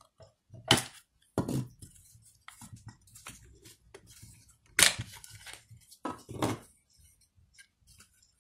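Hard plastic parts of a vegetable slicer set clicking and knocking together as they are handled and fitted, with about five louder knocks among lighter taps.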